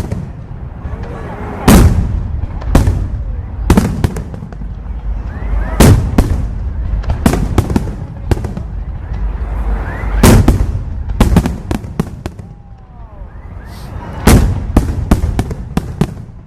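Aerial fireworks shells bursting: a run of sharp, loud bangs at uneven intervals, some in quick clusters, over a continuous low rumble of distant explosions. There is a lull a little after the middle, then a fast cluster of bangs near the end.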